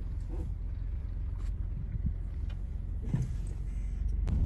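Low, steady rumble of a car rolling slowly along a park road, heard from inside the cabin, with a single sharp click near the end.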